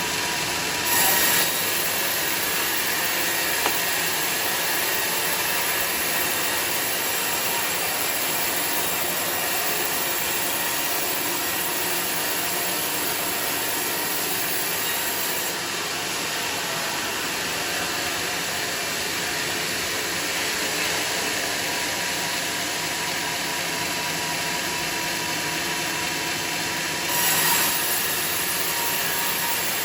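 Sawmill machinery running steadily while sawing teak: a continuous mechanical hiss, with two brief louder surges, one about a second in and one near the end.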